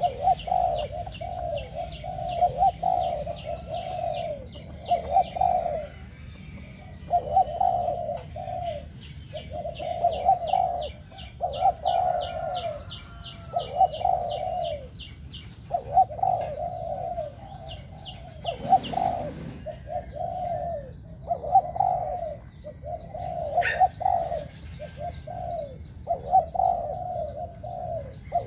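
Caged spotted dove, a decoy bird, cooing over and over in short multi-note phrases with brief gaps between them. Rapid high chirping from a small bird runs over much of it, and there is a brief rustle about two-thirds of the way through.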